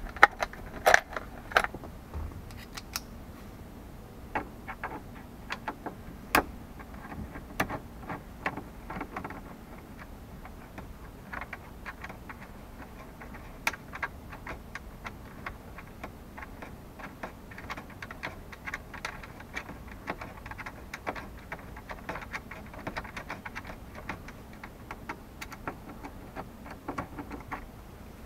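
Hand screwdriver turning out the small screws of a 1978 El Camino's instrument-cluster bezel: a long run of small, irregular clicks and ticks, with a few sharper clicks among them.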